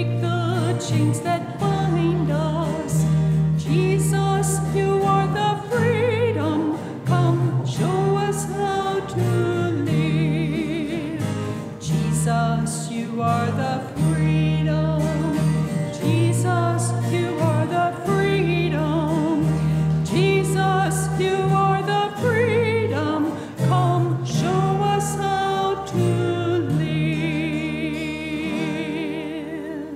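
Offertory hymn sung with sustained instrumental accompaniment, ending on a long held final note that fades out near the end.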